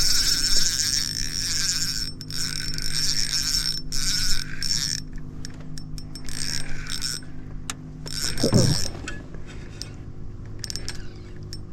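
Fishing reel cranked in long stretches with a whirring gear sound, reeling in a hooked fish that is fighting on the line, over a steady low hum.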